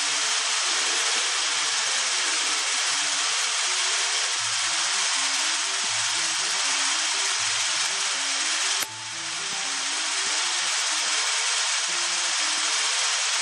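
Electronic sound installation playing a loud, steady hiss of noise with no low end, which cuts out and restarts abruptly about nine seconds in, over soft low electronic notes.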